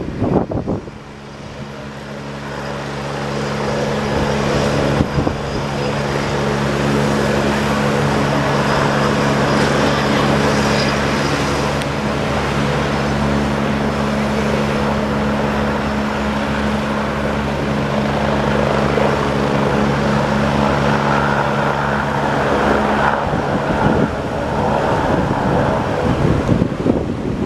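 Agusta twin-engine helicopter running on the helipad with its rotors turning: steady engine and rotor noise with a low hum, building over the first few seconds. The hum drops away about 23 seconds in while the broad rotor noise goes on, with wind gusting on the microphone.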